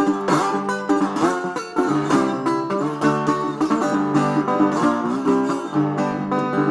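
Plucked string instrument playing an instrumental break with no singing: quick picked notes, some bent or slid in pitch.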